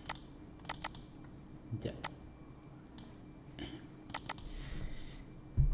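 Computer mouse button clicking: a few short, sharp clicks, including quick double clicks about three-quarters of a second in and again about four seconds in. A low thump comes near the end.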